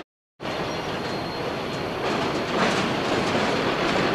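Freight train running past, a steady rolling noise of wheels on rails. The sound cuts out completely for a moment right at the start.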